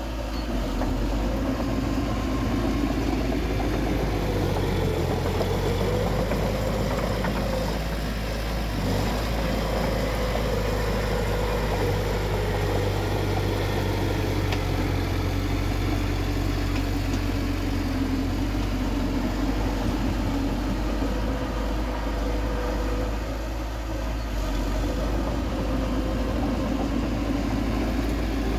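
Bulldozer's diesel engine running steadily, its pitch drifting slightly up and down.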